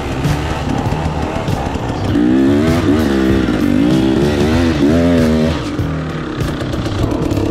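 Dirt bike engine under changing throttle, its pitch rising and falling again and again, loudest from about two seconds in until about five and a half seconds.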